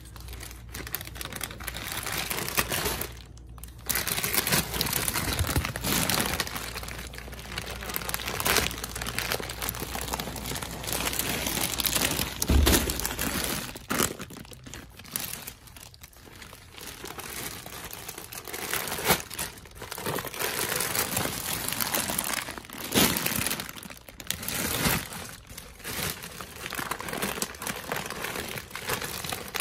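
Plastic shopping bags and cellophane candy packages crinkling and rustling as they are handled and packed, in irregular swells. There is one dull thump about twelve seconds in.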